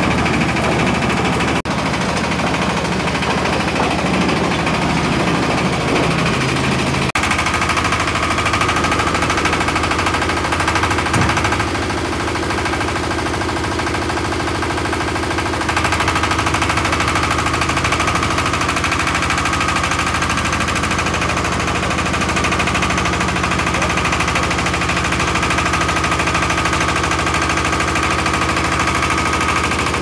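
Concrete mixer's diesel engine running steadily with a rapid, even knocking beat. The machine's sound changes abruptly about seven seconds in and again about sixteen seconds in.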